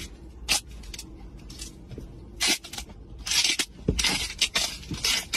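Duct tape being ripped off the roll and torn, in several short noisy rips and a longer one a little past three seconds in.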